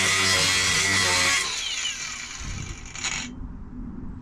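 Handheld power tool cutting through the car's rusted floor sheet metal with a harsh, loud grind. It is switched off about a second and a half in, and its motor winds down with a falling whine.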